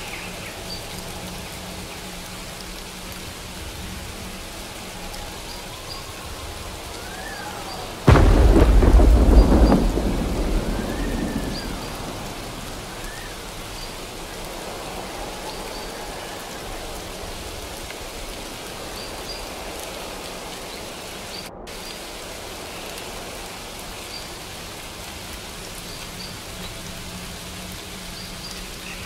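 Steady rain falling, with a sudden loud clap of thunder about eight seconds in that rumbles and fades away over the next few seconds.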